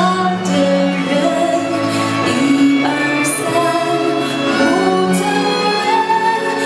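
A song with singing over instrumental accompaniment, playing steadily and loudly.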